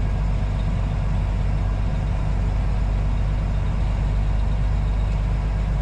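Semi truck's diesel engine running at a steady drone, heard from inside the cab, under an even rush of road and wind noise.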